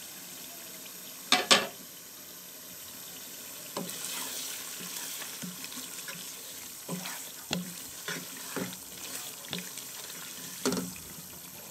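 Chicken simmering uncovered in a thin yogurt gravy in a non-stick pan, bubbling and sizzling with many small scattered pops as the liquid cooks down and is nearly dried off. A single loud knock comes about a second and a half in.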